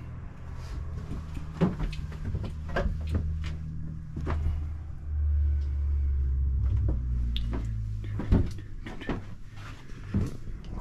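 A series of knocks and clunks over a low, steady rumble that grows louder about halfway through, with one sharper knock near the end.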